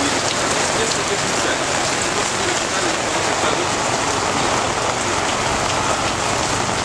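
Heavy rain falling steadily in a thunderstorm, a dense even hiss of downpour.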